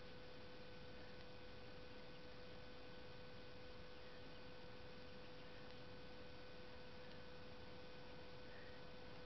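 Near silence: faint hiss with a steady electrical hum, one held tone that does not change.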